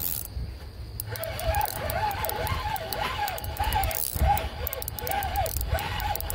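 Fishing reel's clicker ratcheting under the pull of a hooked fish, its fast clicking whining up and down in repeated surges about two a second, over low handling rumble.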